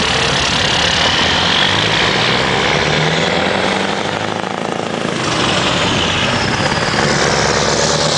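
Scania semi-truck with a refrigerated trailer pulling away and driving up close, its diesel engine running loud and heavy, with a brief dip about halfway through.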